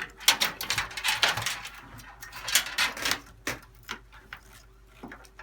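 Rapid clicks, taps and light rattles of computer parts being handled against a PC case, dense for the first three and a half seconds, then a few scattered taps.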